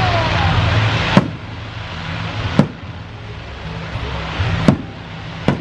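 Fireworks going off: a loud hiss of fountain fireworks fades about a second in, then four sharp bangs of bursting shells come one to two seconds apart. Music's low bass notes play underneath.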